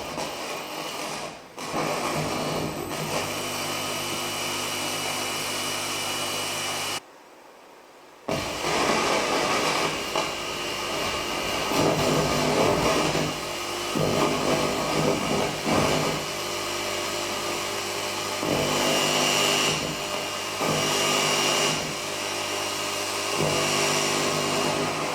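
Experimental live sound score: a steady drone of layered tones. It cuts out for about a second some seven seconds in, then returns as a louder grinding, machine-like texture that swells and falls, with short high whistling tones near the end.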